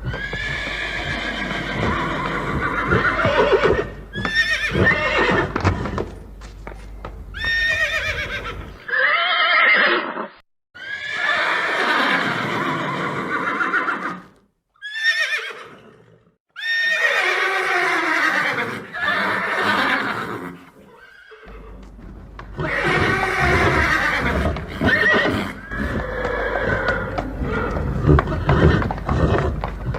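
Horses neighing and whinnying again and again, long wavering calls that fall in pitch, with brief silent breaks between some of them.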